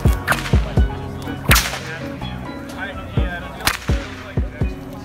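Bullwhip cracking: three sharp cracks, the loudest about a second and a half in, with lower thuds between them, over background music.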